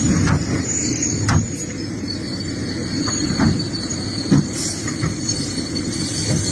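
Excavator running under work: a steady low engine rumble with a thin high-pitched squeal over it, and several sharp knocks scattered through.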